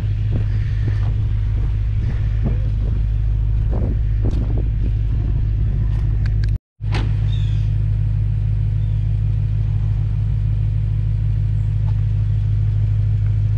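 BMW E92 M3's V8 idling steadily, a low even hum, with a brief dropout about halfway through.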